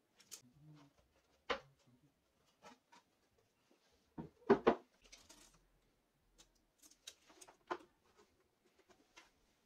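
Scattered light knocks and clicks of objects being handled and set down, the loudest a quick pair of knocks about halfway through.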